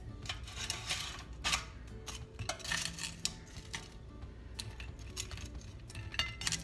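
Metal kitchen tongs clinking and scraping against an air fryer basket as pieces of fried chicken are lifted out: irregular clicks and short scrapes.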